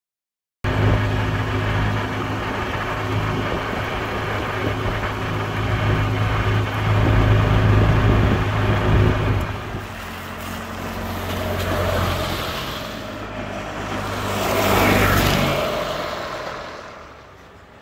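1992 EZGO golf cart's Robin 295cc four-stroke two-cylinder engine running steadily as the cart drives along, starting suddenly. About ten seconds in it drops, swells again around fifteen seconds, and fades away near the end.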